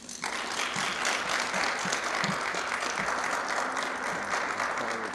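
Applause, starting abruptly and holding steady.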